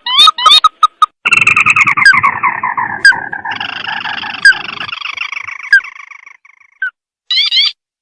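Crake call played from a lure recording: a few short sharp notes, then a long chattering trill that falls in pitch and fades away over about five seconds, with a brief burst of notes near the end.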